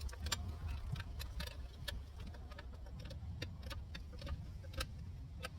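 Irregular light metallic clicks and clinks, a few each second, from hand work on a car wheel, over a steady low rumble.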